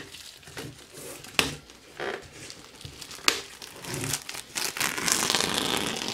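Clear plastic shrink-wrap being peeled off an LP record sleeve, crinkling and crackling with a few sharp clicks. The crinkling grows denser near the end as the film comes away.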